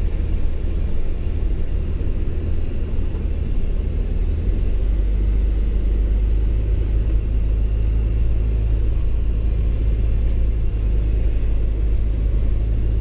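Steady low rumble of a vehicle's engine and tyres driving slowly over a slushy, snowy road, heard from inside the cab. The deep drone grows stronger and steadier about four and a half seconds in.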